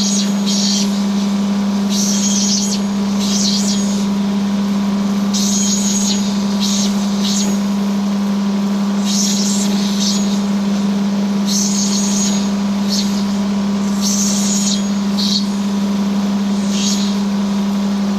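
Electric motor of a lapidary cutting and grinding machine running with a steady hum, with short high rasping bursts every second or two, typical of opal being held against the wheel or saw.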